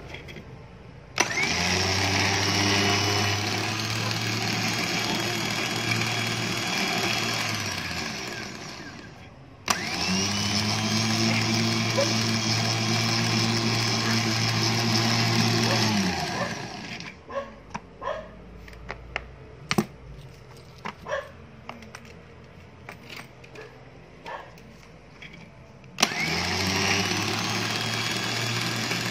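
Hi-Winch 9500 lb electric winch motor and gear train running the steel-cable drum with no load, switched by its wireless remote. There are three runs: one about a second in that winds down, a second straight after at a higher pitch, and a third near the end, each opening with a short rising whine. Between the second and third runs come a series of clicks and light knocks.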